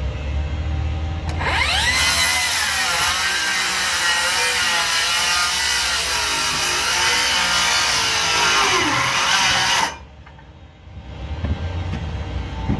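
Handheld power saw spinning up and cutting through stacked lumber filler blocks, its pitch wavering under load. It starts about a second and a half in and stops abruptly just before ten seconds.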